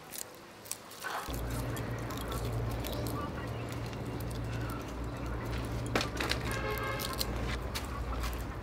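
Garlic cloves being peeled by hand, with small crackles and clicks of the papery skins. From about a second in, a steady low hum runs underneath, and a short pitched sound comes about two-thirds of the way through.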